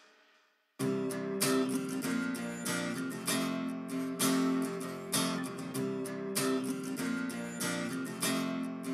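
Background music led by a strummed guitar, starting suddenly about a second in after a brief silence, with a steady even strumming rhythm.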